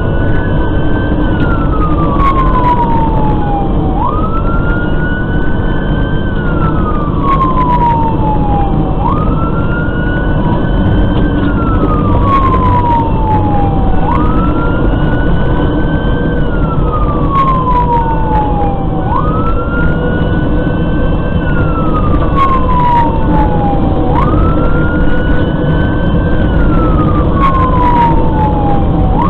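Fire engine siren on wail: each cycle climbs quickly in pitch, holds briefly, then falls slowly, repeating about every five seconds. The truck's engine and road noise run steadily underneath, as heard from inside the cab.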